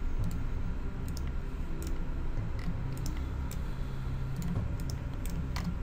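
Irregular clicking of a computer mouse and keyboard, about ten sharp clicks spread unevenly, over a steady low hum.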